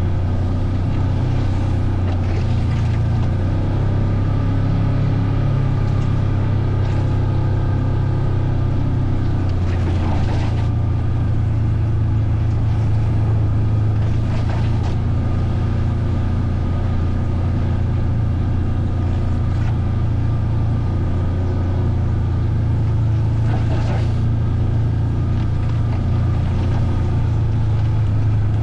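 Vehicle engine running steadily while riding, a low drone that shifts slightly in pitch now and then, with a few brief hisses over it.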